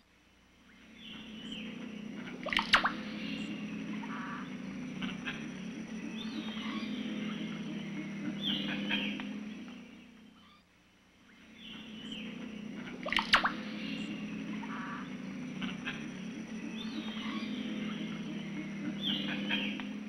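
Recorded wild-bird ambience of assorted chirps and calls over a steady low buzzing chorus. The recording fades out and starts over about every ten seconds. A sharp crack comes about two and a half seconds in and again about thirteen seconds in.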